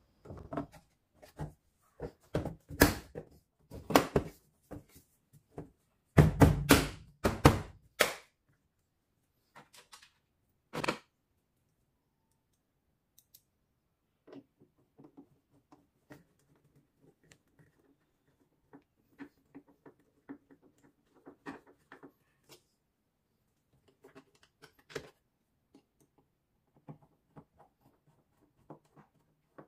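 Plastic rear cover of a top-loading washing machine being pressed and knocked back into place: a run of sharp plastic knocks and clicks, loudest about six to eight seconds in. Then faint clicking and scraping as a screwdriver drives the cover's screws.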